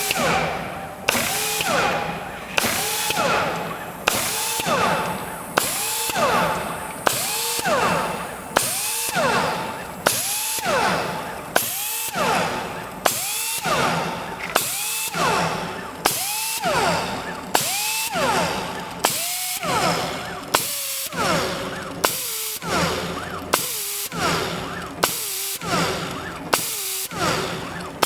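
Power-tool motor spinning an engine-turning tool on a Torchmate CNC table, pressing it onto stainless steel plate to cut swirls over and over, a little more than once a second. Each touch starts with a sharp scrape, the pitch then falls, and a short rising tone follows before the next swirl.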